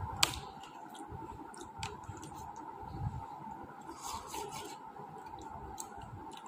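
Spoons clicking and scraping against porcelain bowls, with soft eating sounds, as porridge is eaten. A faint steady hum runs underneath.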